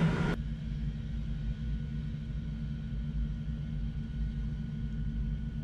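A louder mix cuts off abruptly just after the start, leaving a low, steady rumble with a faint steady high tone above it.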